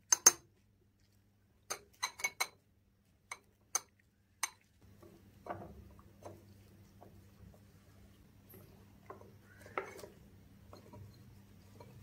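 A metal tablespoon clinking sharply against the glass tumblers and the saucepan while chilled custard is spooned out, about nine quick clinks in the first four and a half seconds. Then soft, dull taps as grapes are dropped into the glasses, over a low steady hum.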